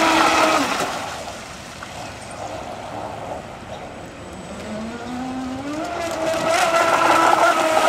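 Electric motor of a radio-controlled model speedboat whining at speed. The whine fades about a second in as the boat runs away, then rises in pitch and grows loud again as it comes back past.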